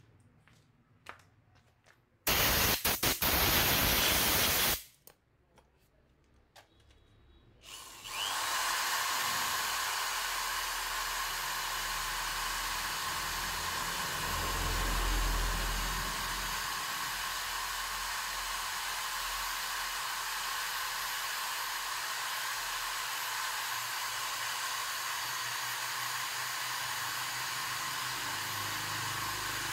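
Corded electric hand drill spinning fine sandpaper inside a motorbike carburetor's throttle bore, scouring off the gummy deposit that makes the throttle stick. There is a short loud burst about two seconds in, then from about eight seconds a steady whirring run.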